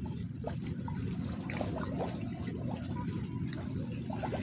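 Sea water lapping and trickling, over a steady low rumble.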